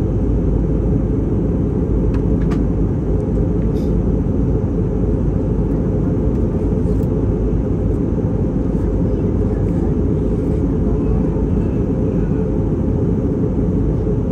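Steady cabin noise of a passenger airliner in flight: a constant low rumble of engines and airflow heard from inside the cabin.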